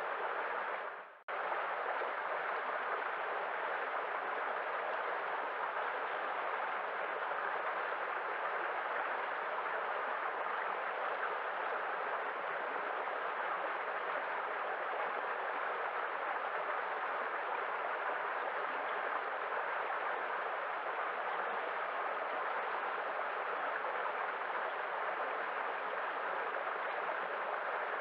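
Waterfall: a steady rush of falling water. It fades to a brief gap about a second in, then returns at full level and continues unchanged.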